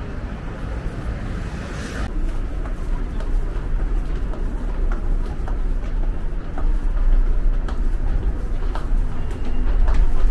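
Steady low rumble with footsteps on concrete stairs, about one faint step every second from about three seconds in.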